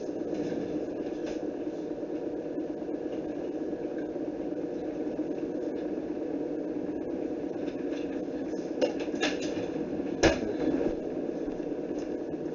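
Electric kettle heating water, a steady low hiss and rumble as it comes to the boil. A few light clicks come about nine seconds in, then one sharp click a little after ten seconds as the kettle switches itself off at the boil.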